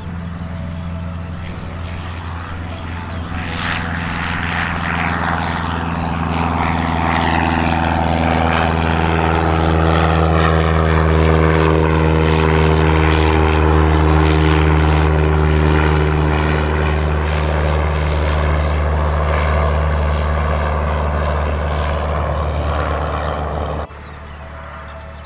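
Single-engine light propeller plane flying past, its engine drone steady in pitch. It grows louder over the first few seconds, stays loud through the middle with a slow falling sweep in the upper tones, then drops off abruptly near the end.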